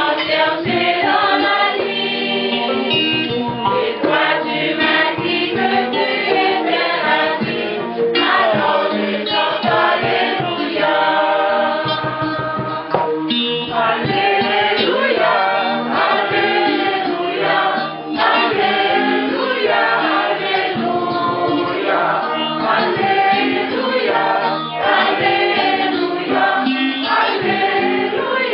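Church choir singing during Mass, the sung acclamation that comes just before the Gospel is read.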